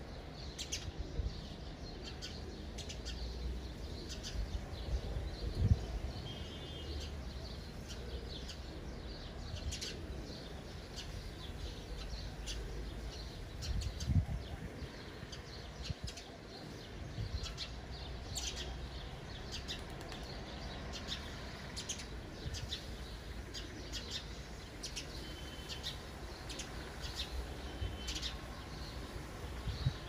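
Sparrows chirping in a tree: many short, quick chirps scattered throughout. Two low thumps, at about a fifth of the way in and about halfway, are the loudest sounds.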